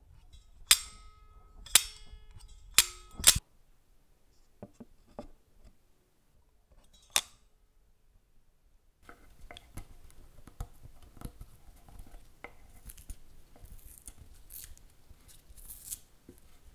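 Spring-loaded shutter of a Kodak Baby Brownie being fired. There are four sharp metallic clicks in the first three and a half seconds, the last two close together, some with a short ring. After a pause come a few faint clicks and one more sharp snap about seven seconds in. The second half holds softer handling noise with scattered small clicks and rustling.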